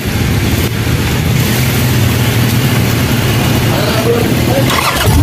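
Harley-Davidson chopper's air-cooled V-twin engine running steadily and loudly, a dense low exhaust rumble.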